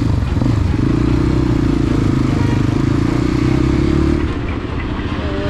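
Motorcycle engine running as the bike rides off, a steady loud drone with a low rumble that drops in level about four seconds in.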